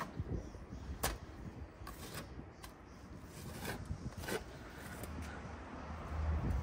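Wet clay being scooped from a plastic bucket and pressed and smeared by hand along the lid seam of a brick tandoor to seal it, with a few short, sharp scrapes and taps scattered through.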